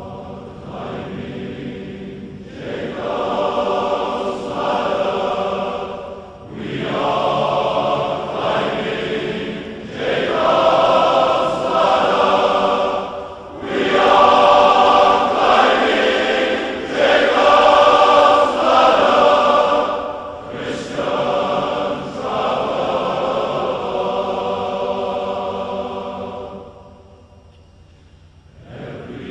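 Massed male voice choir of thousands singing in long held phrases, each broken by a short breath. It swells to its loudest in the middle and dies away near the end.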